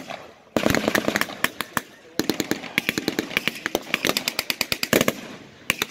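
Machine gun firing blanks in two rapid bursts, the first about a second and a half long and the second about three seconds, with a few single shots around them.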